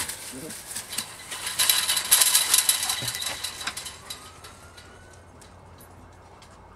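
Chain-link fence rattling and jingling as a dog squeezes out underneath it, with scraping and rustling in the grass and dry leaves; the noise is loudest two to three seconds in and dies away by about four seconds.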